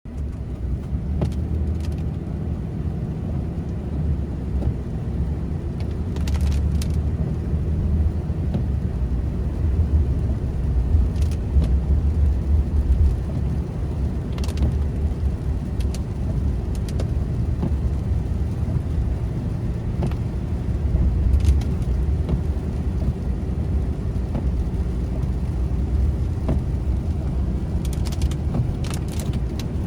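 Steady low rumble of a car in motion, with scattered sharp clicks and ticks over it.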